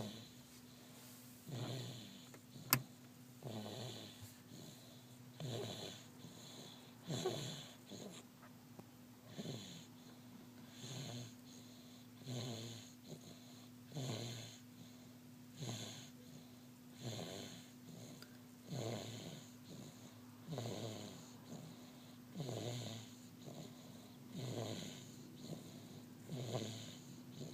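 Snoring in deep sleep, one snore roughly every second and a half to two seconds, each dropping in pitch, over a steady low hum. A single sharp click about three seconds in.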